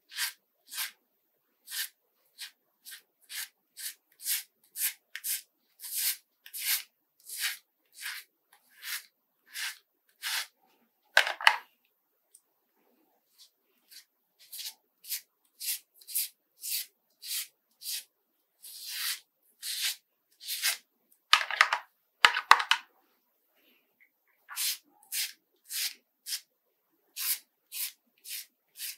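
Cartridge razor scraping stubble off a lathered scalp in short strokes, about one or two a second, with a few longer, louder strokes and two brief pauses.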